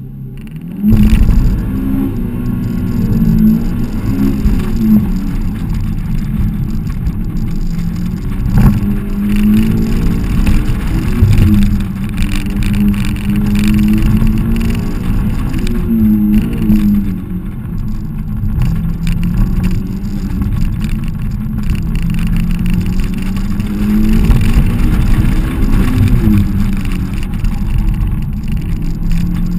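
Honda S2000's four-cylinder engine on a hard autocross run, heard from inside the open cockpit: it launches about a second in and then rises and falls in pitch over and over as the car accelerates and slows between the cones.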